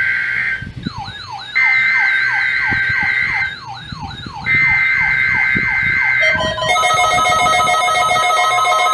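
NOAA Weather Radio required weekly test: three bursts of SAME digital header data, each a steady two-tone data buzz. In the gaps between them an alert receiver sounds repeated falling electronic sweeps, about three a second, over a warbling high tone. About six seconds in, a steady chord of several electronic alarm tones takes over.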